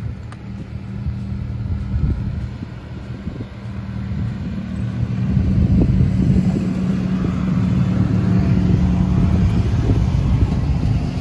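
Vehicle engine running steadily with irregular low thumps, growing louder about five seconds in.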